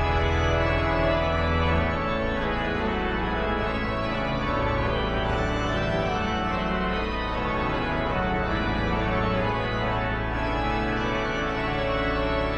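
Father Willis pipe organ playing, with steady low pedal notes held under several moving lines played on the manuals.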